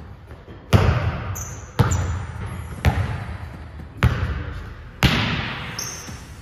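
A basketball being dribbled slowly on an indoor court, five hard bounces about a second apart. Each bounce echoes and fades through the large gym.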